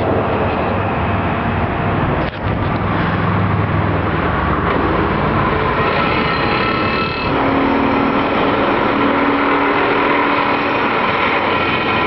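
Excavator-mounted vibratory pile driver running, vibrating a steel pile into the ground with a loud, steady rattling drone over the excavator's diesel engine. The drone drops out briefly just after two seconds, and a steady hum joins it about seven seconds in.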